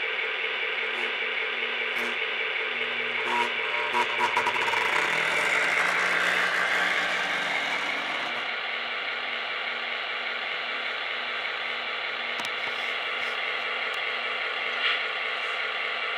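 Lionel EMD SD9 O-gauge model diesel locomotive running on three-rail track: a steady motor-and-gear whine with the clatter of metal wheels on the rails, growing louder with a run of clicks from about 3.5 s to 8 s, then steadier, with a single sharp click near the end.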